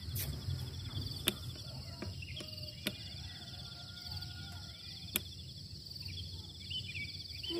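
Insects calling steadily in a fast, high, pulsing trill, over a low rumble of light wind on the microphone. A few sharp clicks are heard at intervals.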